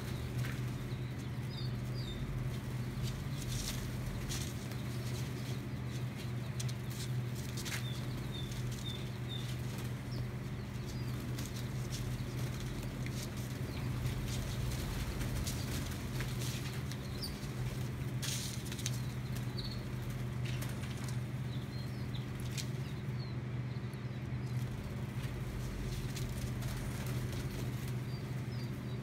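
A flock of young game birds in a brooder: short flurries of wingbeats as birds fly up, scattered high peeps, and a steady low hum throughout.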